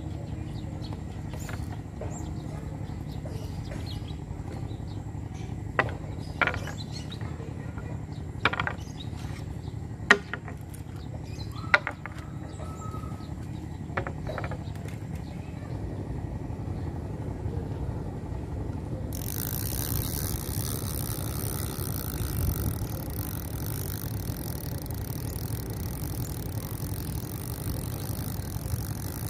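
Steady low drone of a boat engine running on the river, with a few sharp clicks in the first half and a brighter hiss joining about two-thirds of the way through.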